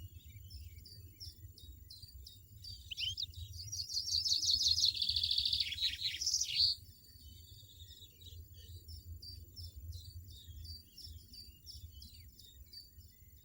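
European goldfinch chirping and twittering in quick short notes. In the middle comes a louder, rapid twittering run lasting about four seconds.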